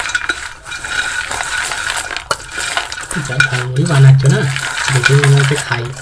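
A spoon mixing fried sweet corn kernels with spices in a bowl: a quick run of clinks and scraping against the bowl. A low voice sounds in the background from about halfway.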